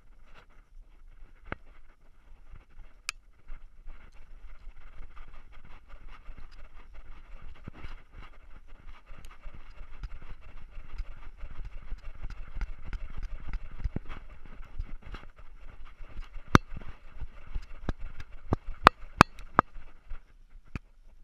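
GoPro camera on a running dog's collar, jolting with each stride: a rumbling, rhythmic clatter with sharp knocks and clicks of the camera against the collar, which come thicker and louder in the last few seconds.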